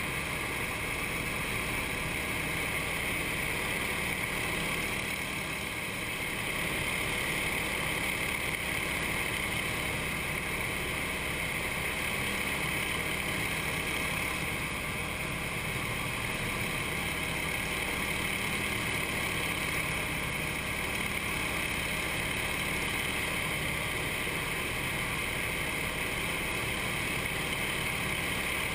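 Nine-cylinder radial engine and propeller of a CJ-6A or Yak-52 trainer running steadily at formation cruise, heard from inside the closed cockpit with a constant rush of airflow over the canopy.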